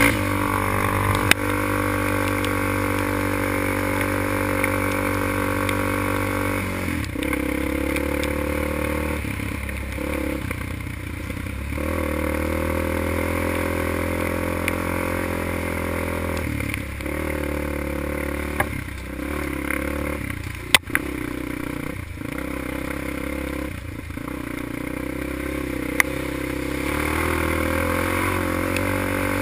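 Quad (ATV) engine running hard on a wet dirt trail, its pitch rising and falling with throttle and shifts, with tires splashing through puddles and a few sharp knocks over bumps.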